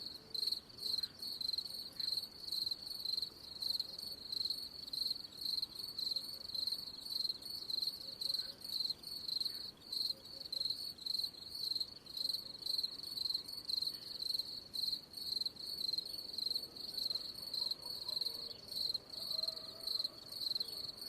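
Cricket chirping steadily: a high, pure trill pulsed in regular chirps, about two a second.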